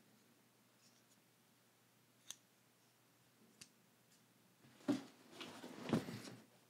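Two faint sharp clicks from a small folding knife being handled, then the scraping and rustling of a cardboard shipping box being picked up, with two dull knocks a second apart.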